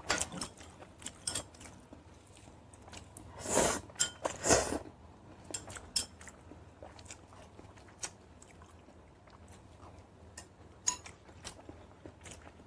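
Close-miked eating: chewing and biting food, with many small clicks of utensils against dishes. Two louder, noisier bursts come about three and a half and four and a half seconds in.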